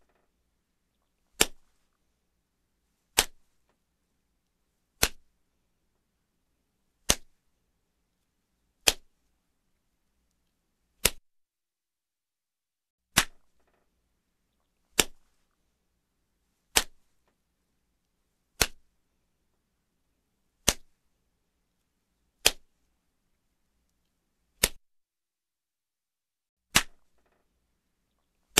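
Light slaps, one at a time: fourteen single sharp smacks about every two seconds, with silence between them.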